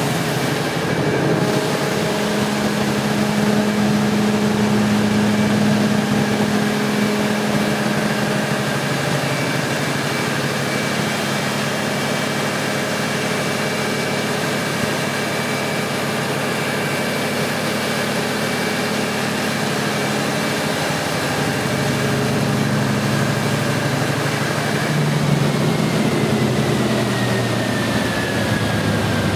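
Large Caterpillar diesel generator set running steadily, a heavy engine drone with a thin whine above it. Over the last few seconds the whine slides down in pitch.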